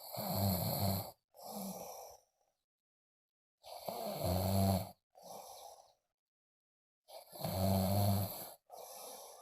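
A person snoring: three loud, low, rattling snores about three and a half seconds apart, each followed by a shorter, quieter breath.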